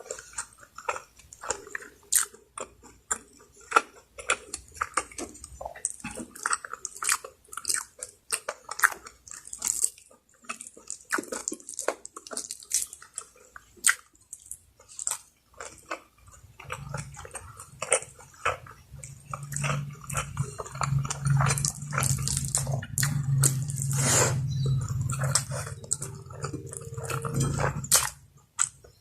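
Close-miked wet chewing, biting and lip smacking of someone eating Bicol Express, in many short irregular clicks. About halfway through a steady low hum comes in beneath the chewing and stops shortly before the end.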